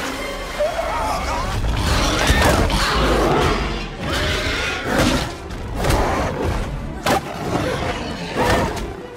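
Action film soundtrack: heavy thuds and crashes with gliding creature-like cries over a music score, changing abruptly about four seconds in.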